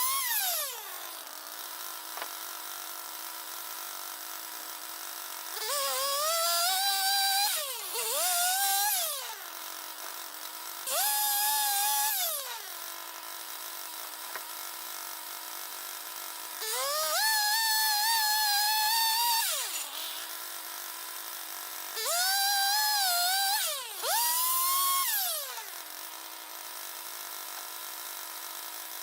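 M6 Turbosawmill swing-blade sawmill with a new thin-kerf circular blade, six times speeding up to a high whine for one to three seconds of cutting, the pitch wavering and dipping under load. Between the cuts it drops back to a steady lower hum.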